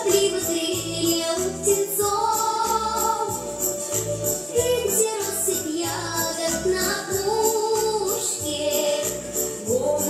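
A young woman singing a pop song with instrumental accompaniment: a regular bass beat under her melody, with jingling high percussion like a tambourine.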